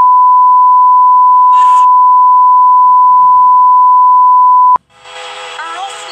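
A long censor bleep: one steady, very loud, single-pitched beep tone lasting nearly five seconds, covering the words of a TV song. It cuts off abruptly, and voices and music resume near the end.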